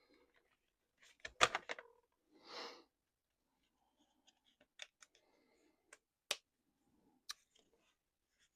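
Small parts and tools being handled on a workbench while an RC truck is taken apart: a cluster of clicks and knocks about a second and a half in, a short hiss just after, then single sharp clicks every second or so.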